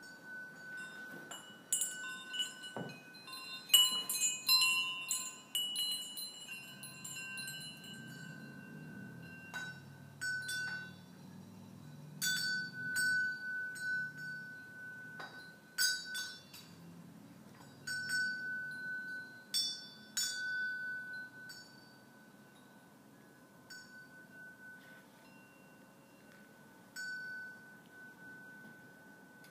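Small Swiss cowbells hanging from a swaying mobile, clinking at irregular intervals, each strike leaving a ringing tone. The strikes come thickest in the first few seconds and thin out to an occasional clink near the end.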